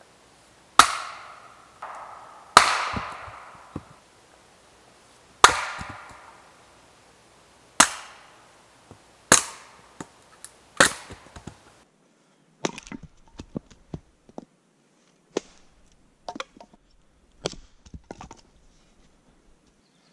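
An axe splitting firewood on a chopping block: six hard, sharp chops about two seconds apart, each ringing briefly. After that come lighter, quicker axe knocks and the clatter of split wood.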